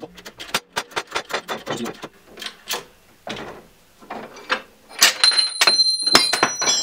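Steel crankshaft and press-fixture parts clicking and knocking as they are shifted into place by hand. About five seconds in comes a cluster of sharper metal clinks with a high ringing.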